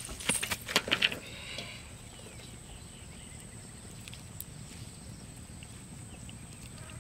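A few quick footsteps in sandals on dry grass and leaves in the first second, then a quiet outdoor background.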